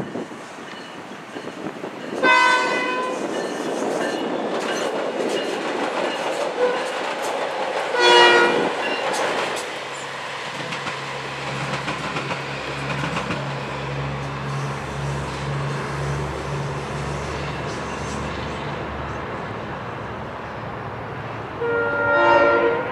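A SMART diesel multiple-unit passenger train running past, with its horn sounding three times: briefly about two seconds in, again around eight seconds, and once more near the end. Between the blasts there is the continuous noise of the train on the track, with a low, pulsing rumble through the middle.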